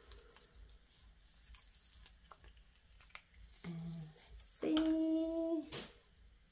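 Faint ticks and rustles of gloved hands easing a resin coaster out of a silicone mould, then a woman's voice humming: a short low hum and, a little later, a louder 'mmm' held on one pitch for about a second.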